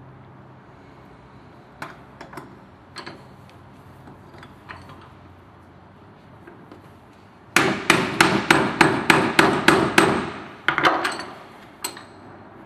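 Sharp metal-on-metal impacts as a ball bearing is tapped onto the armature shaft of an electric polisher's motor: a few light taps, then a fast run of about a dozen hard strikes, about four or five a second, and a few more before it stops.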